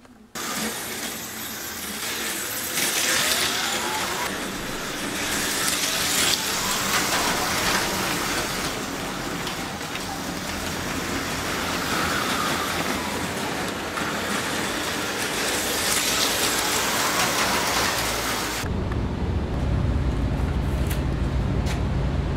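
HO-scale electric slot cars running on the track, a steady hiss of wheels and pickups with a few faint motor whines rising and falling. Near the end the hiss drops away, leaving a low rumble.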